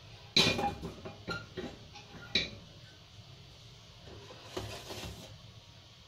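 Metal cookware knocking and clinking as a stainless pot and a fine mesh strainer are handled over a pot on the stovetop: a sharp clank just after the start, lighter clinks, a second clank about two and a half seconds in, then softer scraping near the end.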